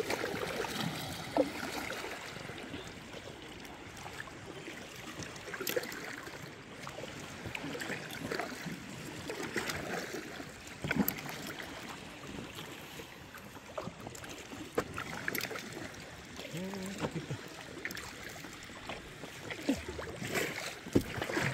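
Water lapping and trickling around a kayak as it is paddled slowly, with small irregular splashes and drips from the paddle.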